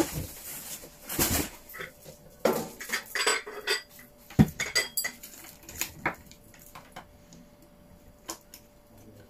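Clattering and knocking of the hard ceramic and glass parts of a wax-warmer lamp being handled, many quick clinks with one heavier knock about four and a half seconds in, thinning out near the end. It sounds rough enough to be mistaken for breaking it.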